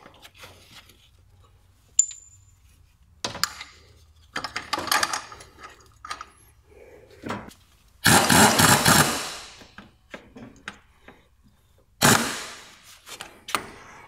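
Metal clinks and clatter of tools and parts as the crankshaft pulley and its bolt are fitted to a Renault 1.5 dCi engine. Two louder noisy bursts, each about a second long and fading out, come about eight and twelve seconds in.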